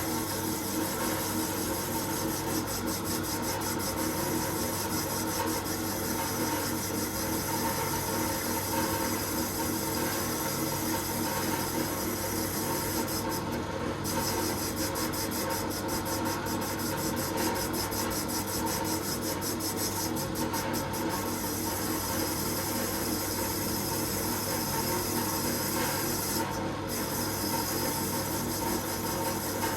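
Powered wire wheel running steadily, scrubbing powdery rust off the steel bar of a quick-grip clamp.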